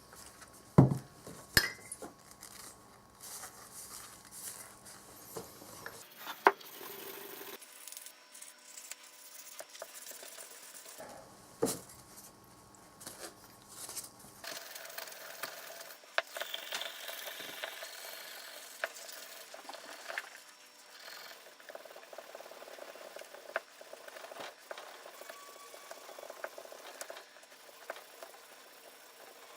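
Small metal parts being handled and worked by hand: scattered clinks, taps and light scraping, with a few sharp knocks.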